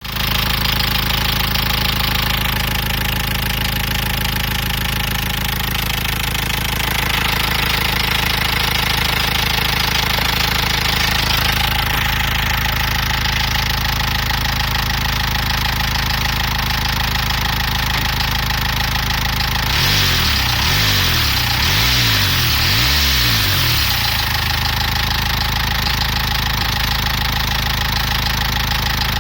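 Nissan Qashqai engine running with a knocking noise. About twenty seconds in, the engine speed rises and falls a few times for a few seconds, then settles back.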